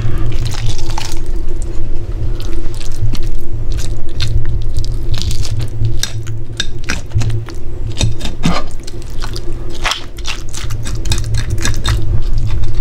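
Kitchen knife cutting and working inside a freshly opened chub mackerel, with wet squelching of the innards and irregular clicks and scrapes of the blade against the cutting board. A steady low hum runs underneath.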